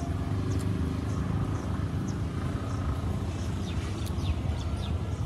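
Outdoor ambience: a steady low rumble, with small birds chirping briefly several times and a few quick falling chirps about four seconds in.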